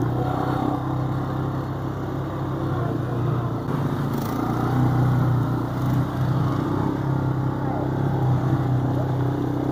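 An ATV engine running steadily on a trail ride. Its pitch holds with small rises and falls as the throttle varies.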